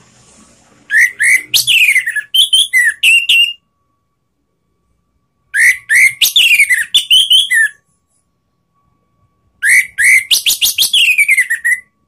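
Orange-headed thrush (anis merah) singing loudly in three phrases about four seconds apart. Each phrase is a quick run of sharp, whistled notes with falling slurs.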